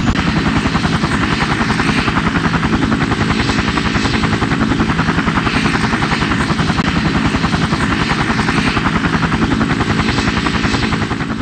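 Helicopter rotor chopping steadily in an even rhythm, a sound effect, fading out near the end.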